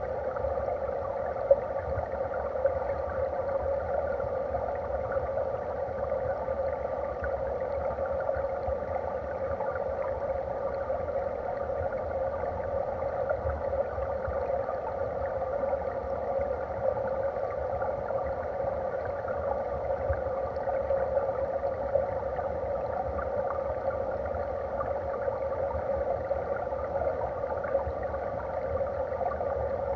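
Steady rush of flowing stream water heard underwater: a dull, even noise with a low rumble. A couple of brief knocks come about one and a half and two and a half seconds in.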